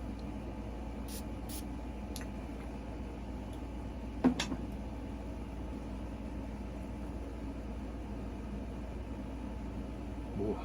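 Steady low background hum with a few faint ticks, and one sharp knock about four seconds in.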